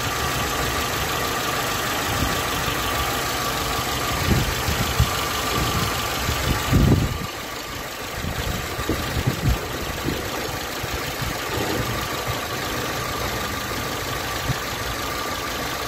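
Renault Symbol engine idling with a steady high whine over the running, the noise that comes from a worn bearing in the air-conditioning compressor. A few low knocks come about four to seven seconds in.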